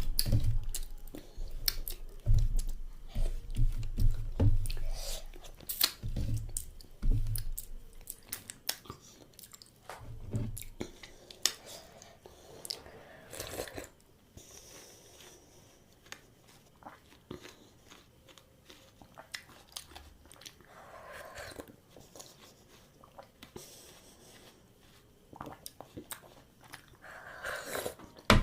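A person chewing and eating food close to the microphone, with many sharp wet mouth clicks and bites; louder with low thumps in the first half, quieter from about halfway.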